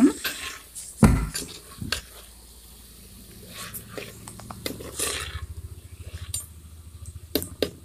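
A spoon stirring and scraping through onions, tomatoes and green chillies in a cooking pot. There is a loud knock against the pot about a second in, and quick repeated scraping strokes near the end.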